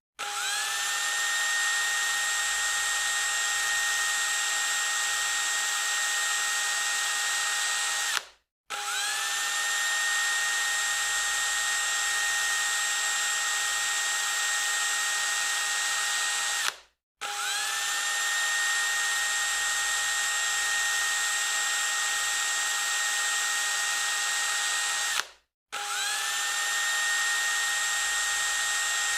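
Electric drill spinning up quickly to full speed and running with a steady high whine, then cutting off abruptly. The same run starts again about every eight and a half seconds, four times.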